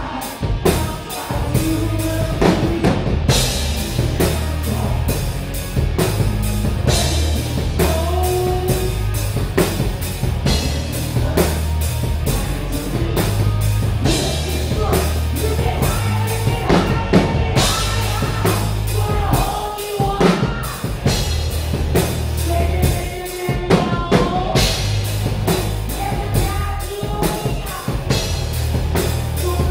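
Rock band playing live at full volume: a pounding drum kit and heavy low end, with sung vocals over them.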